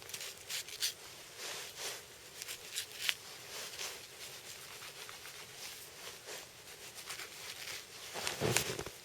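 Hunting knife cutting and scraping through deer meat: a scatter of light ticks and soft scrapes, with a somewhat louder scrape near the end.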